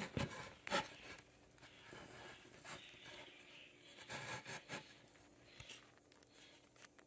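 Faint handling sounds of plywood: a few light knocks in the first second, then soft rubbing and scraping of wood on wood.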